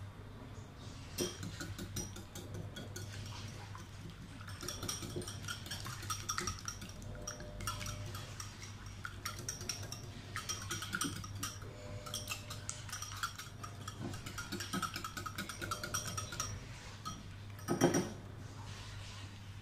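Metal wire whisk beating eggs in a ceramic bowl: rapid clicking and tapping of the wires against the bowl, in spells with short pauses. A single louder knock comes near the end.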